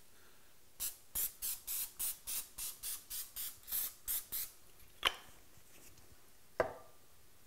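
Cooking release spray spritzed onto a metal baking sheet in about a dozen quick short hisses, three or four a second, followed by two light knocks.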